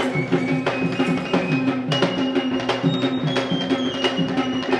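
Traditional Kandyan drums, double-headed drums slung at the waist, beaten by a group in a fast, steady rhythm, with about three strong strokes a second and lighter strokes between them.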